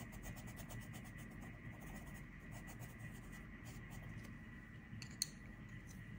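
Coloured pencil shading on paper, its rapid back-and-forth strokes scratching faintly, growing sparser after the first couple of seconds. A single sharp click comes about five seconds in.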